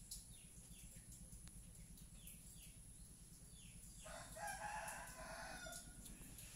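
A rooster crowing once, faintly, starting about four seconds in and lasting about two seconds. A few short falling chirps come before it.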